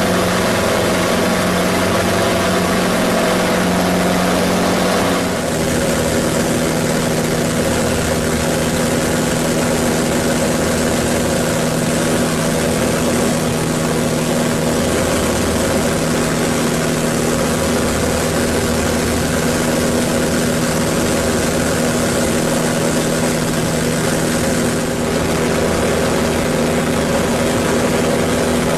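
Pitts Special aerobatic biplane's piston engine and propeller, heard from inside the cockpit in climbing flight. It runs as a steady, loud drone with airflow noise, and drops slightly in pitch about five seconds in.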